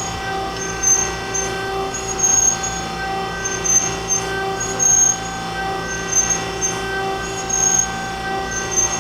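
Harig EZ Surf II reciprocating surface grinder running with its table traversing back and forth hydraulically: a steady mechanical hum and whine from the spindle and hydraulics, with a high whine and swells in level that come back every second or so as the table travels and reverses.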